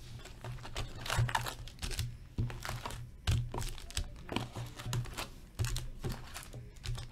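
Foil-wrapped hockey card packs crinkling and knocking against each other and the cardboard hobby box as they are lifted out, a string of short handling sounds about every half second.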